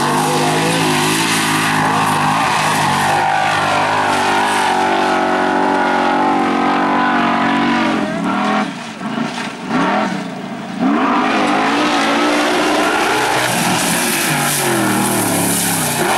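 Formula Offroad buggy's engine running flat out at high, steady revs. About eight seconds in, the revs jump up and down in quick surges for a few seconds, then settle back to a steady pull. Near the end the pitch falls as the throttle comes off.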